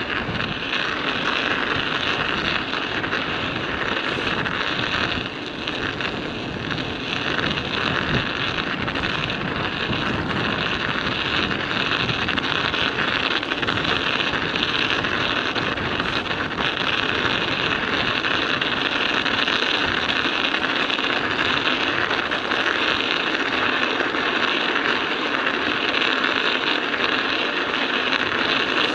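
Studded bicycle tyres rolling on an icy, snowy road, the studs crunching and clattering steadily, with wind buffeting the microphone.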